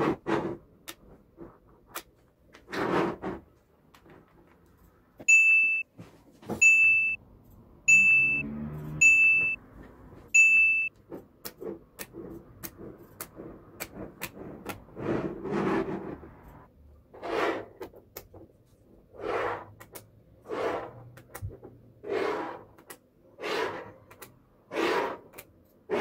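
Small neodymium magnetic balls clicking and snapping together as sheets of them are joined and pushed across a tabletop, with a run of soft swishing slides about every second and a half in the second half. A third of the way in, five short high beeps sound in an even row.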